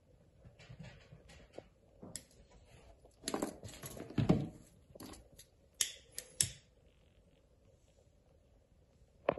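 Workbench handling noises: knocks, taps and clicks as tools and saddle parts are picked up and put down. The loudest is a duller knock a little before the middle, followed by three sharp clicks and one more knock near the end.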